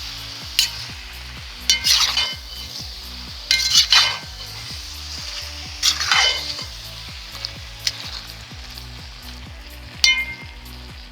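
A metal utensil scraping and clinking against the inside of a kazan as a chicken and tomato stew is stirred, in about five separate strokes with a short metallic ring, over a steady sizzle from the simmering pot.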